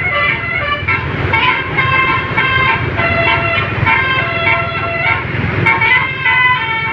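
Bus telolet horn: a set of multi-tone horns playing a tune of short stepped notes, over the low rumble of the bus's engine.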